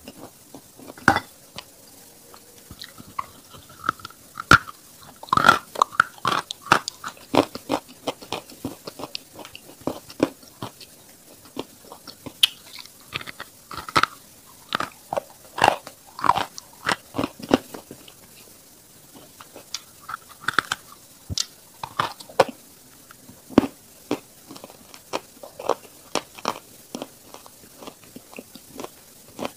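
Close-miked biting and chewing of lumps of eating chalk: sharp, irregular crunches that come several to the second at times, easing off briefly about two-thirds of the way through.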